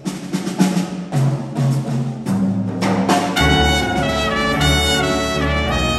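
Jazz big band playing: sharp percussive hits over bass and piano, then about three and a half seconds in the horn section of saxophones, trombones and trumpets comes in with held chords.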